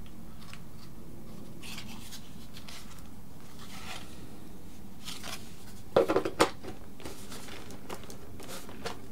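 Small handling noises as a plastic strut is worked against a model plane's foam wing: light rubbing and scraping, with a quick cluster of clicks about six seconds in.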